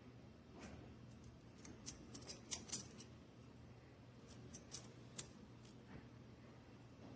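Small plastic magnetic building cubes clicking together as they are handled, a scattered run of sharp light clicks, busiest from about two to three seconds in and again a few more near five seconds.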